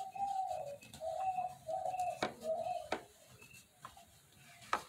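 A dove cooing: about four low, drawn-out coos in the first three seconds. Three sharp clicks come in the second half.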